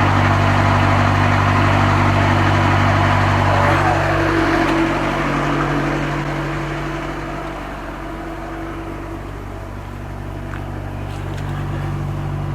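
Heavy truck's diesel engine running at idle, a steady low hum that weakens about halfway through and builds slightly again near the end.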